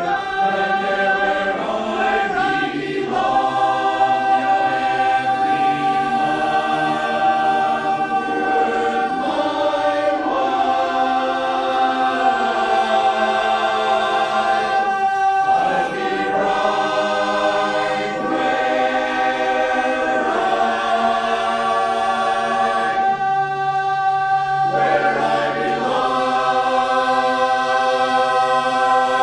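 Barbershop chorus singing a cappella in close harmony, its chords shifting beneath a high note held almost all the way through.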